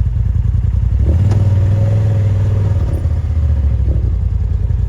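Side-by-side UTV engine running under load, its low rumble growing stronger about a second in, with a few faint knocks.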